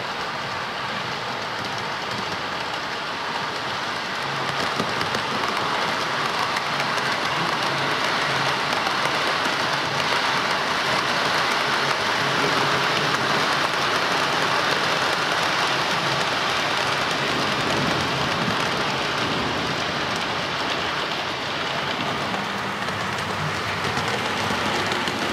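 OO-gauge model trains running over the layout's track: a steady rushing of wheels and motors that grows louder about four seconds in, dips briefly near the end, then rises again.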